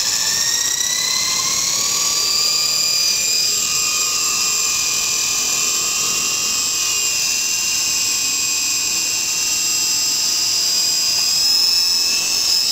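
Hummingbird FP micro RC helicopter's electric motor and glue-repaired rotor blades spooling up with a rising whine over the first couple of seconds, then holding a steady high whine that cuts off right at the end.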